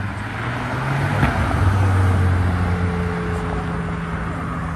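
A car accelerating past on the road, its engine note and exhaust noise swelling to the loudest point around two seconds in, then easing off a little as it goes by.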